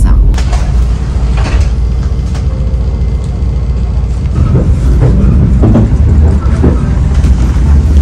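Steady low rumble inside a diesel passenger train carriage, with a few faint knocks and clatters over it.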